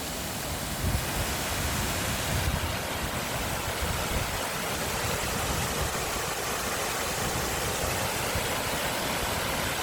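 Waterfall rushing: a steady, even noise of falling water, with an uneven low rumble underneath.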